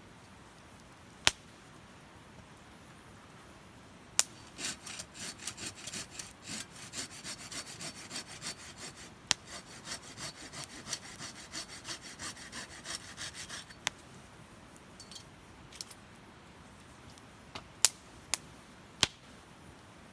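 Wood fire crackling, with sharp single pops now and then and a dense run of rapid crackles in the middle.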